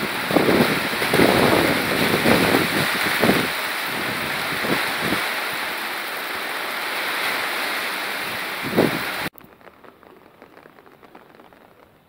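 Heavy rain falling, a loud steady rush with a few low thuds in the first half; it cuts off suddenly about nine seconds in, leaving only a faint background.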